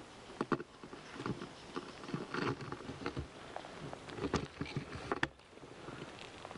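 Light, irregular rustling and crackling with a few sharp clicks, loudest about half a second in and again between about four and five seconds in.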